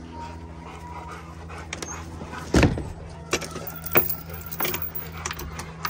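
Metal chain latch on a wooden shed door being worked by hand. A sharp thump comes about two and a half seconds in, followed by a series of metallic clinks and rattles, about two a second. A steady low hum runs underneath.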